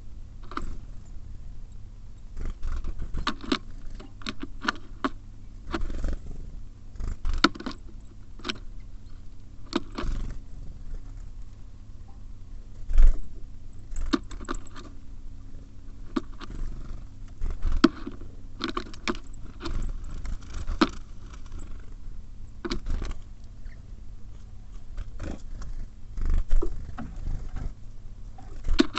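Small birds (tits and sparrows) at a bird feeder, pecking and hopping, giving irregular sharp taps, clicks and scrapes, with a louder knock about 13 seconds in.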